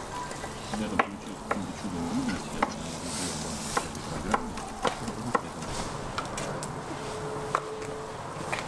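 Large pan of meat broth simmering and bubbling over a wood fire, with scattered sharp clicks and knocks of utensils about once a second.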